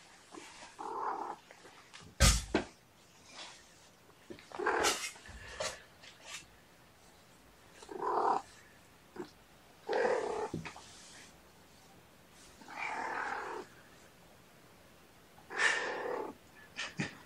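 A cat meowing repeatedly, about six calls each under a second long and spaced a couple of seconds apart, with one sharp knock about two seconds in.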